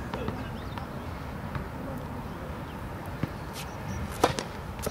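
Tennis racket striking the ball on a serve: one sharp pop about four seconds in, the loudest sound, followed by a softer knock. Before it, a few faint taps as the ball is bounced on the hard court.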